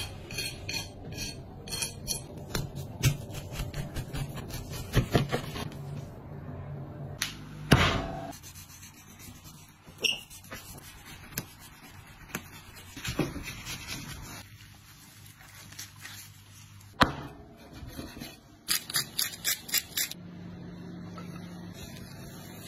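A large cleaver-type kitchen knife cutting and scraping through a big fish on a wooden chopping board: blade strokes rasping along skin and flesh, with sharp knocks of the blade on the board. The loudest knocks come about 8 s and 17 s in, and a quick run of chops comes near the end.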